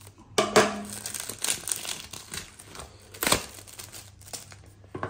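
Clear plastic shrink wrap being pulled off a phone's cardboard box and crumpled in the hand: a run of crinkling crackles starting about half a second in, with one sharp, louder crack a little past three seconds.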